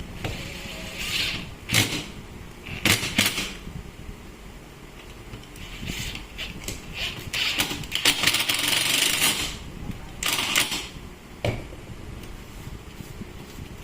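Irregular clicks, clatter and short scraping sounds of tools and small parts being handled during a repair, with a steady low background hum.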